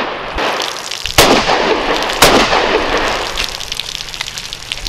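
Two rifle shots about a second apart, fired into truck fuel tanks. Each is a sharp crack with a long echoing tail.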